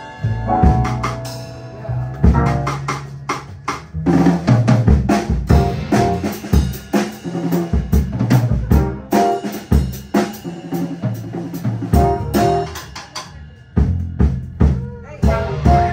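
A small live jazz band: a drum kit played busily with snare, bass drum and cymbal hits over an upright double bass.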